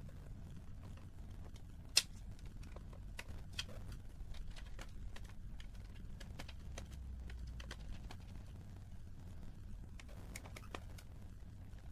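Small, irregular plastic clicks and taps from a screwdriver and fingers working on the underside of a laptop's plastic case as screws and parts are removed, with one sharper click about two seconds in.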